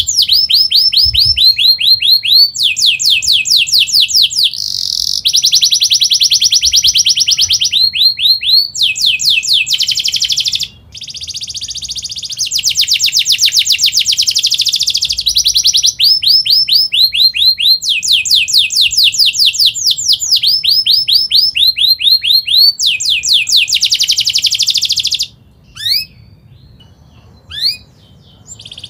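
Domestic canary singing a fast, tightly packed roller song: rapid trills of repeated high sweeping notes in phrases of one to two seconds, one straight after another, with a short break about eleven seconds in. Near the end the song stops, leaving only two brief chirps.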